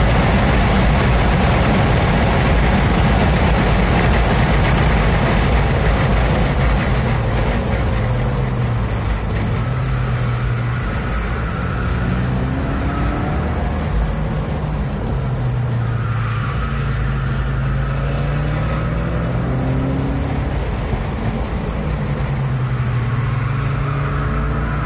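Inside the cabin of a 2016 Ford Focus RS on track: at first heavy wind and road noise at about 116 mph with the turbocharged four-cylinder engine high in the rev range in fifth gear. After about a third of the way in, the car is slower in third gear and the engine note falls and rises several times as it slows for and powers out of corners.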